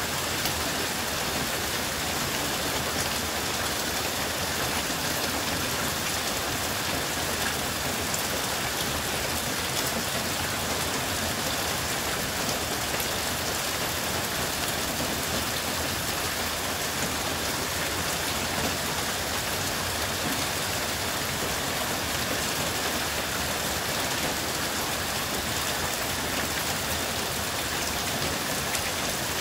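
Heavy downpour, about an inch an hour, falling steadily onto standing water and soaked sandy ground: a dense, even hiss of rain splashing on the flooded surface.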